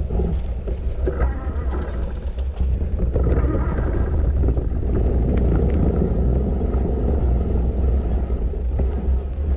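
Steady low wind rumble buffeting the microphone during an e-bike ride.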